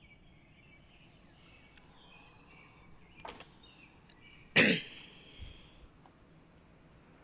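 Faint birds chirping over a steady high insect hum, broken by a short, loud burst of noise about four and a half seconds in and a softer one about three seconds in.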